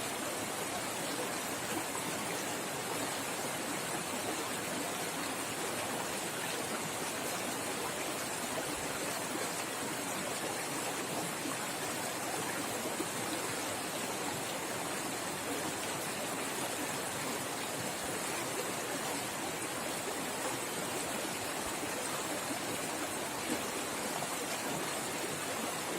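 River water rushing and splashing fast over rocks: a steady, unbroken hiss and gurgle of running water.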